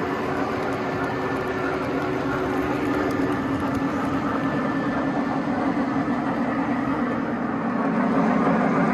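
Three-rail O-gauge model freight train rolling past close by, a steady rumble of metal wheels on metal track with a faint steady hum in it that stops about three seconds in. The rumble grows a little louder near the end.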